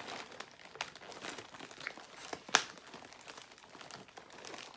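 Parcel packaging crinkling and crackling as hands try to tear it open, the packaging resisting. One sharp, loud crackle about two and a half seconds in.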